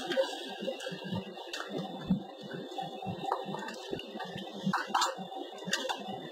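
Airliner cabin noise while taxiing onto the runway: a jumble of light knocks, clicks and rattles with a faint murmur, with a few sharper clicks about a second and a half in and near the end.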